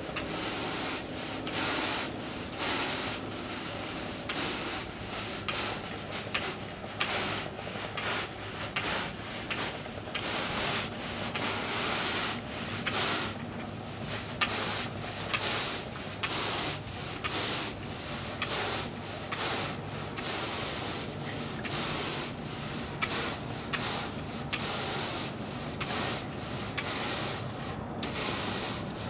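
Stiff-bristled push broom scrubbing over artificial turf in repeated strokes, brushing a white granular infill down into the synthetic grass fibres.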